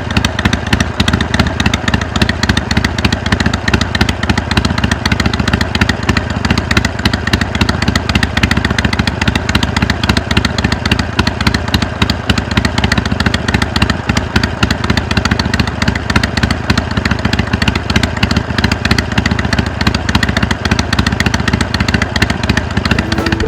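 Harley-Davidson Iron 883's V-twin engine running steadily through a Jekill & Hyde flap exhaust, a loud, rapid, even beat with no revving.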